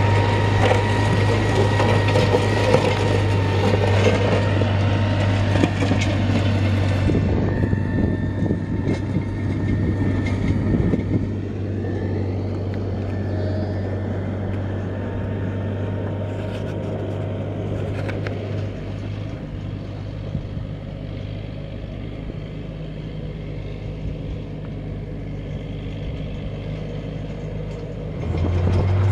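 Tractor engine running steadily under load as it drags an angled rear blade through the soil of a swale cut. The sound is brighter and noisier for the first several seconds, turns duller and quieter, then grows louder again just before the end.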